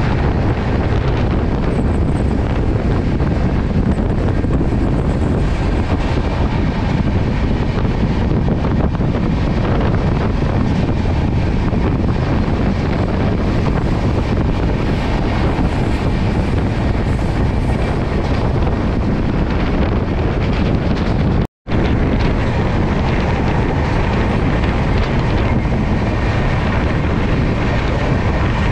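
Shatabdi Express train running, a steady loud rush of wind and rolling noise with wind buffeting the microphone. The sound cuts out for an instant about three-quarters of the way through.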